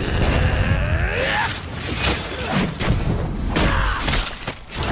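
Animated fight-scene sound effects: a continuous low rumble with crashing, shattering impacts, and swooping tones that fall in pitch around a second in and again near four seconds.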